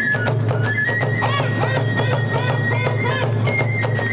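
Kagura festival music: a bamboo fue flute holds a high, steady note that steps to a new pitch now and then, over rapid, continuous beats of taiko drum and tebyoshi hand cymbals.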